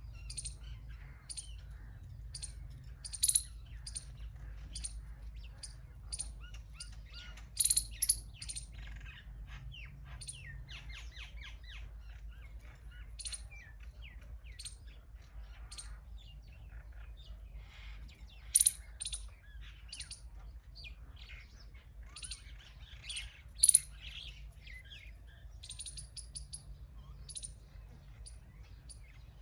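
Several small birds chirping, short high chirps coming thick and fast from more than one bird, with a few louder chirps standing out about three, eight, eighteen and twenty-four seconds in. A steady low rumble runs underneath.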